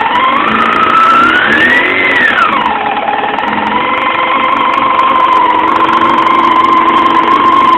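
1999 Yamaha YZF-R6's 600 cc inline-four engine running, revved once, rising for about two seconds and dropping back, then idling steadily at a slightly higher pitch. The owner reports a bad sound from the engine but does not know its cause.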